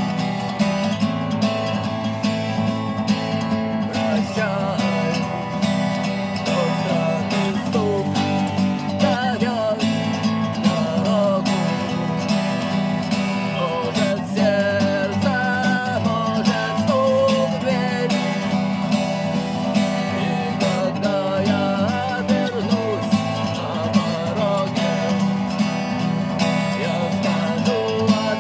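Instrumental break of a rock song: strummed guitar under a wavering lead melody, with a steady beat.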